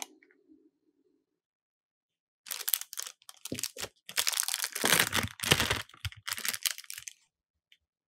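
Clear plastic piping bag crinkling and rustling as it is filled with thick cream and handled, in a run of irregular crinkles that starts about two and a half seconds in and stops about a second before the end.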